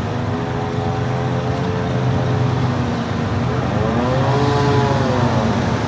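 Diesel locomotives of an approaching CN freight train: a steady low engine drone under a broad rushing noise whose tone slowly sweeps down and back up as the train nears.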